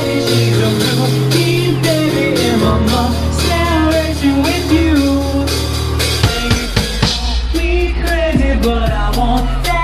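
A live rock band playing a song: a voice singing over a drum kit and sustained low bass notes. A quick, even beat of sharp drum strokes comes in about seven seconds in.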